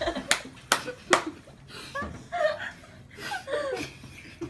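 Soft chuckling and quiet laughter, with three sharp smacks in the first second or so.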